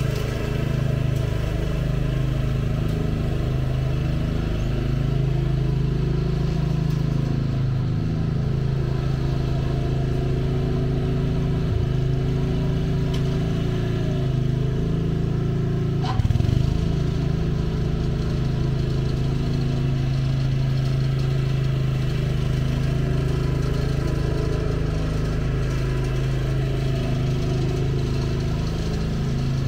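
Cub Cadet CC30H riding lawn mower's engine running steadily as it mows, with a single sharp knock about halfway through.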